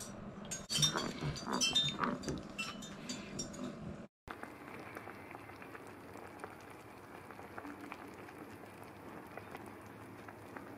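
Light clinks and taps of a metal spoon and spice container over a skillet. After a cut, a faint steady bubbling with small pops from a mushroom brown gravy simmering as it cooks down and thickens.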